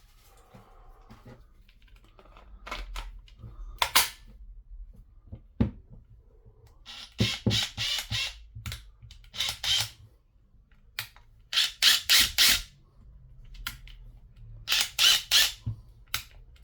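A sharp click as a battery is fitted, then the reassembled DeWalt DCF850 impact driver, converted to a 3/8 impact wrench, run in four short bursts on the trigger.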